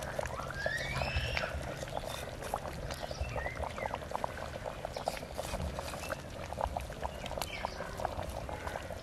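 Hot broth faintly bubbling and popping in a clay pot, with many small scattered pops. A bird or other animal gives a few short calls that rise in pitch, in the first second and a half and again about three and a half seconds in.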